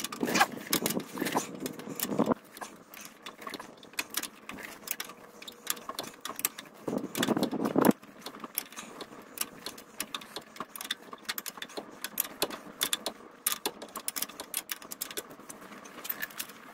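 Ratcheting wrench clicking rapidly in repeated runs as a stiff nut on a pickup's front suspension is worked around, with brief rustling of gloved hands and tool.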